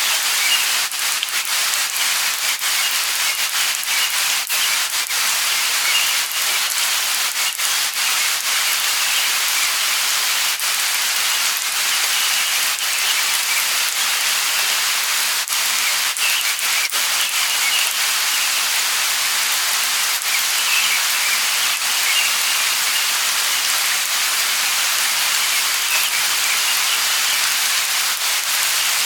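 Light rain falling steadily, an even hiss with scattered ticks of individual drops.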